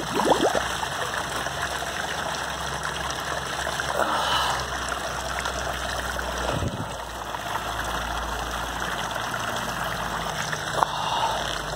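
Hot spring water running and trickling between the soaking pools, a steady rushing hiss, with a steady low hum underneath.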